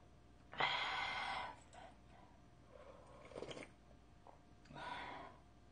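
A person drinking from a bowl with three breathy slurps or sips: a loud, longer one about half a second in, then two shorter, softer ones.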